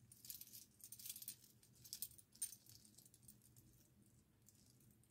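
Faint crinkling and light clinks of a small item being worked out of its plastic wrapping by hand. It comes in several short bursts with a couple of sharp clicks over the first two and a half seconds, then goes quieter.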